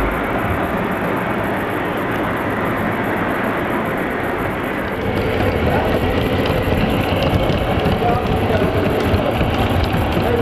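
O scale model trains running on three-rail track: a steady rolling rumble of wheels and motors. About five seconds in it grows louder as a stainless-steel Burlington Zephyr model passenger train passes close by.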